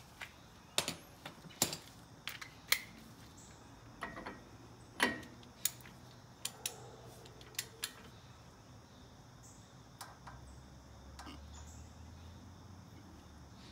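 Scattered light metal clicks and taps of a socket on a front wheel spindle nut, as the nut is backed off and reset by hand after torquing; the clicks come irregularly, mostly in the first half.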